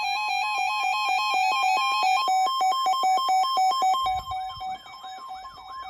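Electronic alert tones ahead of a broadcast emergency warning: two high tones switch rapidly back and forth over a fast, repeating chirping sweep. The upper, buzzier part cuts out about two seconds in, and the whole signal drops much quieter about four seconds in.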